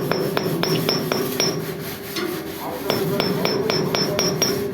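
Goodeng 20-ton horizontal directional drilling rig running, its engine humming steadily under a fast, even ticking of about four ticks a second that stops for a moment midway and then starts again.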